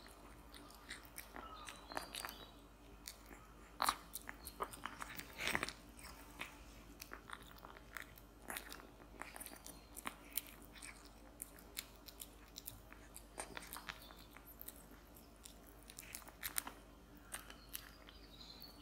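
Tabby kitten eating slices of turkey breast from a plate: close-up chewing, a run of irregular small clicks, the loudest about four and five and a half seconds in.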